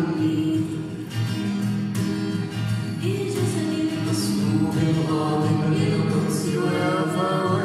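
A girl singing a melody through a microphone, with some notes held long, over an acoustic guitar accompaniment.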